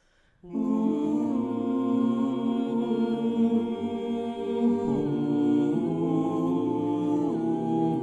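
Small mixed choir of men's and women's voices singing a cappella, entering together about half a second in and holding sustained chords that move to new pitches a few times.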